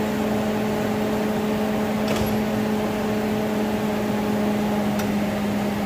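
Steady mechanical hum, with a faint click about two seconds in and another near the end.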